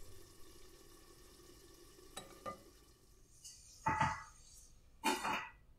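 Bacon frying in a pan: a faint steady sizzle, with two louder scrapes and clatters of a utensil in the pan in the second half.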